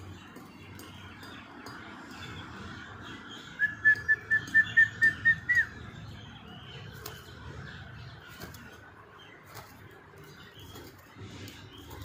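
Alexandrine parakeet giving a quick run of about eight short, piercing whistled calls at one high pitch over about two seconds, the last call sliding upward. Faint wing flutters follow near the end.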